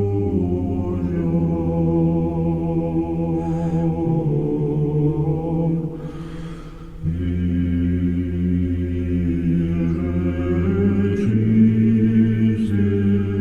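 A choir singing slow, sustained church chant with long held chords over a low held bass note. About six seconds in, the singing thins out for a moment before the full sound returns.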